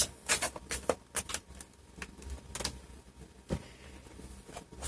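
Plastic screen bezel of an Asus E510 laptop clicking back into place as its edge is squeezed: a string of irregular sharp clicks.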